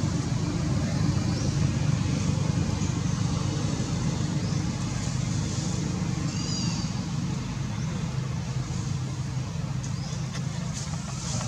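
Steady low rumble of outdoor background noise, with a brief high chirp about six and a half seconds in.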